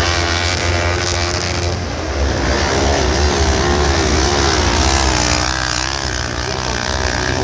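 Several kart-cross buggies' engines racing, their pitch rising and falling as the drivers accelerate and lift around the dirt track, over a steady low rumble.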